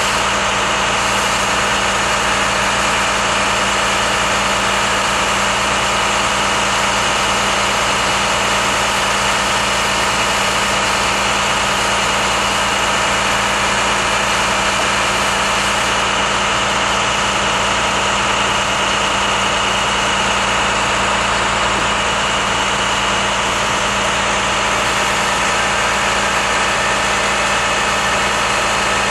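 An engine idling steadily, its pitch and level unchanging.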